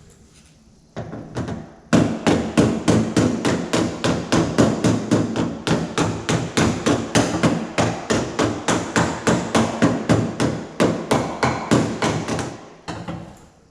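A weighted chisel-type tool tapping rapidly on the inside of a steel car door panel against a heavy dolly held on the outside, at about four blows a second. This is hammer-on-dolly work to raise a low spot; the blows ring on the dolly rather than sounding hollow, the sign that they are landing in the right area. The tapping stops near the end.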